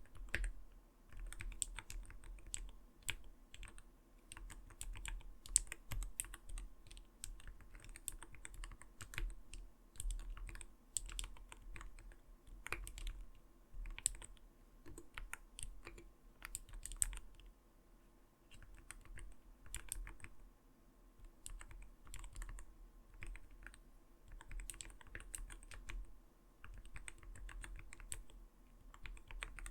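Continuous typing on an Arbiter Studio Polar 65 gaming keyboard: a brisk run of soft, rounded 'koto-koto' key clacks, easing off briefly a little past halfway before picking up again.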